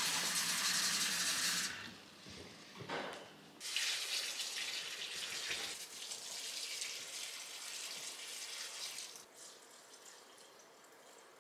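Kitchen faucet running into a ceramic pitcher, shut off about two seconds in. Then a longer, softer stretch of pouring water from about four to nine seconds.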